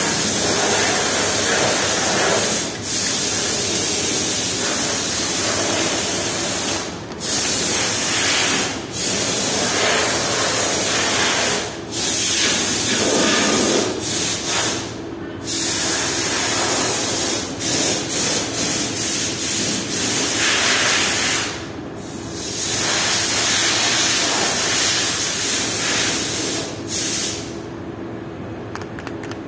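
A loud, steady hiss that breaks off briefly several times.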